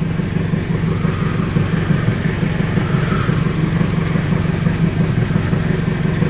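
Pickup truck engine idling steadily with a low, even hum.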